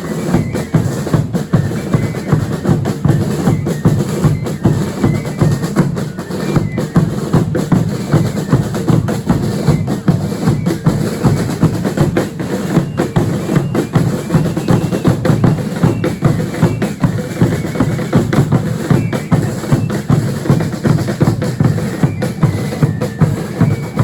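Drum band of a Chilean religious dance troupe, bass drums and snare drums beating a steady, fast, repetitive rhythm without pause.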